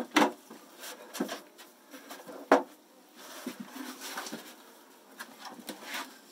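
Lid of a Layens hive being lifted off and set aside, giving a string of sharp wooden knocks and clatter. The loudest knock comes about two and a half seconds in.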